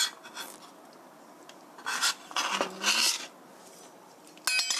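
Kitchen knife blade scraping julienned zucchini strips across a plastic cutting board in a few short strokes. Near the end comes a brief metallic ring as the knife knocks against the stainless steel mixing bowl.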